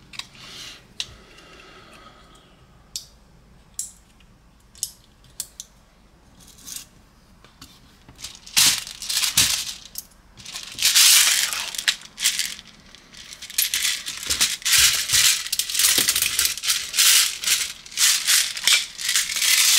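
Airsoft BBs rattling against plastic and metal while being loaded into a spring-fed pistol magazine. A few scattered clicks come first, then from about eight seconds in there are loud spells of rattling that become almost continuous.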